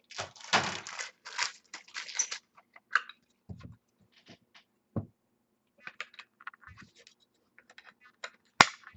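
Handling noise from a trading card and a plastic one-touch card holder: a dense patch of rustling and scraping at first, then scattered small clicks and a few dull taps, with one sharp snap near the end.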